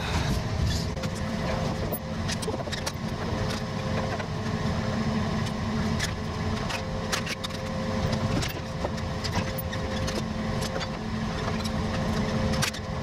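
A framing nailer driving nails into wood lookouts and a roof truss: sharp single shots at irregular intervals, over a steady engine-like drone.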